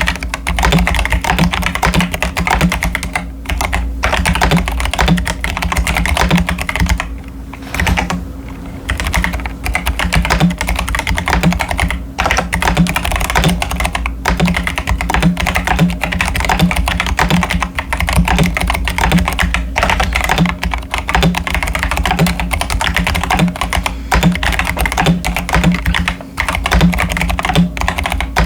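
Continuous typing on a modded CIY Tester 68 mechanical keyboard with stock Akko Jelly Purple tactile switches and Cherry-profile dye-sub PBT keycaps: a dense clatter of keystrokes, with two short pauses about seven and eight and a half seconds in.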